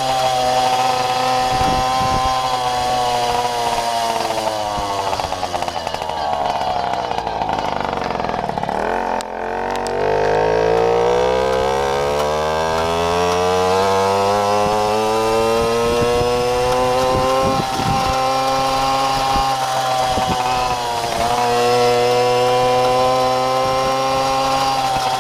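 Babetta moped's small two-stroke engine running under way: its revs sink for several seconds, climb back up, then hold steady.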